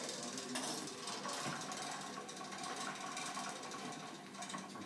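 Hand-cranked chrome pasta machine rolling a sheet of pasta dough, its gears clicking steadily as the crank turns.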